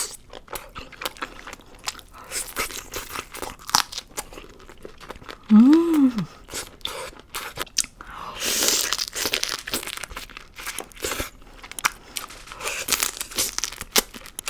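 Close-miked eating: crunchy bites, crackling and chewing of seafood-boil food. About six seconds in, a short hum that rises and then falls in pitch is the loudest sound.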